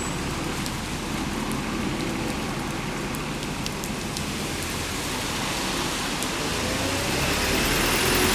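Steady road and engine noise of a moving city bus, with a few faint rattles and a rising whine near the end as the bus picks up speed.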